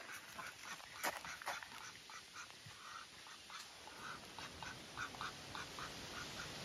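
White domestic ducks quacking: a run of short, faint quacks, a couple a second. A few sharp clicks come about a second in.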